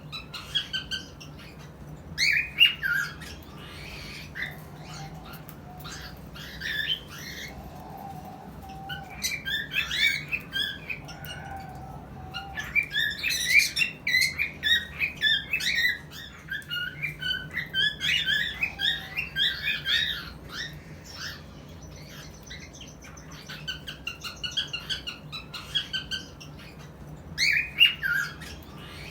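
Cockatiels chirping and squawking in bouts of short, high calls, separated by brief pauses, over a faint steady hum.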